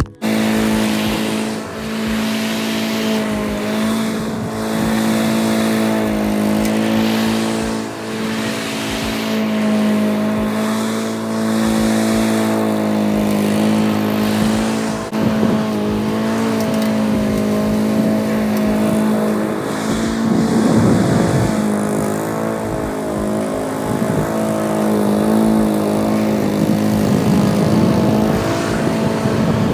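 Honda walk-behind lawn mower with twin blades running at a steady speed while cutting grass, its engine note dipping briefly a few times and roughening now and then under load.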